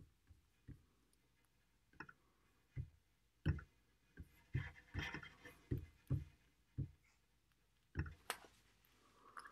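Scattered soft knocks and clicks close to the microphone, about a dozen at irregular intervals: handling noise from someone working the device that is recording.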